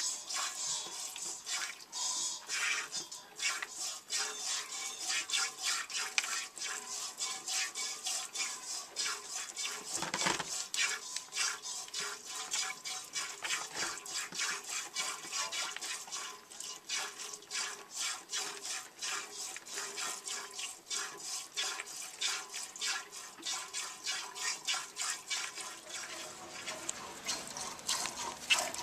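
Hand-milking a goat: streams of milk squirting into a container in a quick, steady rhythm of hissing squirts, about two or three a second.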